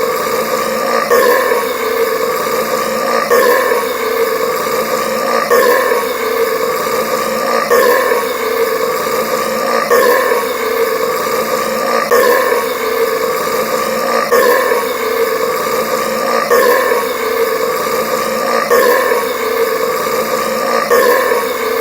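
A person's long soda burp looped over and over, the identical burp restarting about every two seconds.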